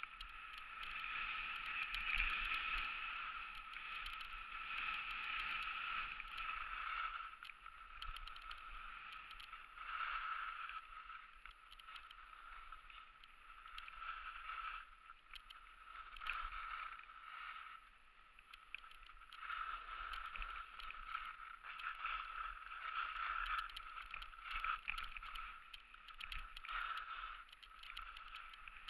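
Skis sliding and carving on a groomed ski slope: a swishing snow noise that swells and fades again and again with the turns.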